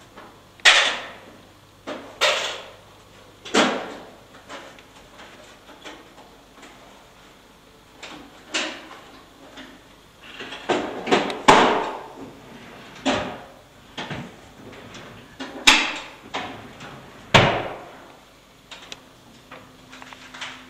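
About ten sharp knocks or bumps, irregularly spaced a second or two apart, each dying away quickly with a short ringing tail.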